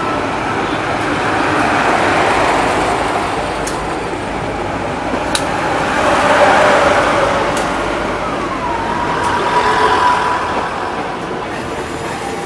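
Passenger train coaches rolling past close by, a steady rumble with a few sharp clacks of wheels over rail joints. A high whine dips slightly and then holds about two-thirds of the way through, in keeping with wheel squeal.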